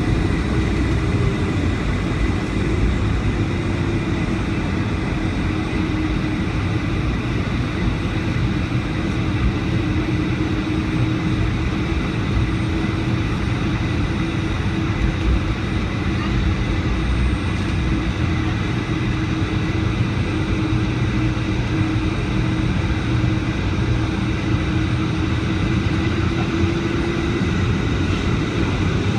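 Steady cabin noise inside a Boeing 757-200: a constant jet engine drone and airflow rush, with a faint hum whose pitch drifts slowly up and back down.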